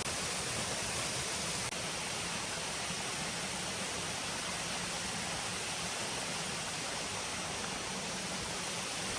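Waterfall rushing steadily, an even wash of water noise with no change.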